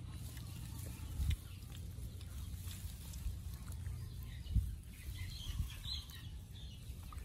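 Faint calls of farmyard fowl over a steady low rumble, with two soft thumps, about a second in and midway through.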